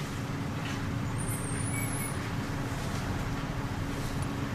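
Steady low hum with an even hiss and a constant faint tone, and no distinct event.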